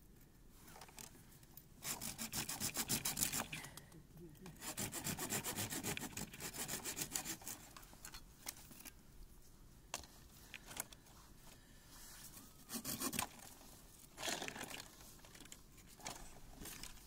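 Hand saw cutting wood in several spells of rapid back-and-forth strokes, with short pauses between.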